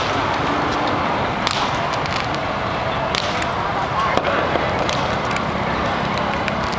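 Festival crowd noise: many voices talking at once in a dense, steady hubbub, with a few sharp cracks standing out about every second or two.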